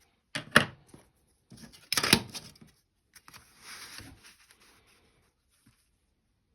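Drawing tools being handled on a work surface: two sharp knocks, about half a second and two seconds in, with rustling and scraping around them, then a softer rubbing sound near four seconds in.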